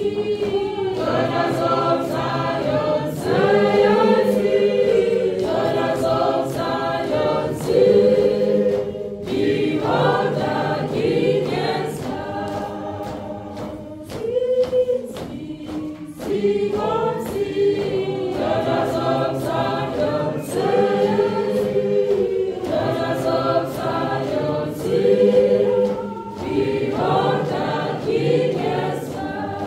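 Church choir singing a processional hymn in harmony, phrase after phrase with short breaks between lines.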